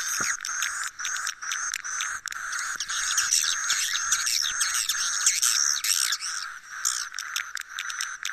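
Swiftlet 'suara inap' roosting-call recording, the lure played to draw swiftlets to roost in a swiftlet house. It is a dense, continuous chorus of rapid swiftlet chirps and twitters with many quick clicks, over a steady high hum.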